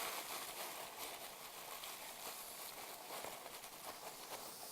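Faint rustling and crinkling of tissue paper being handled and tucked, with small scattered crackles that taper off near the end.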